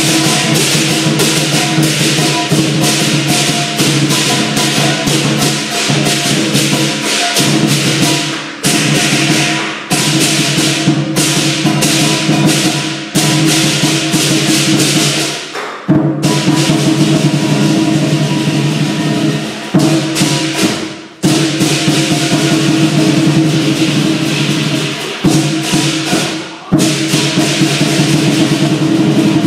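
Live lion dance percussion: a big drum beaten fast with cymbals clashing over it in a dense, continuous rhythm. It breaks off for a moment several times and comes straight back in.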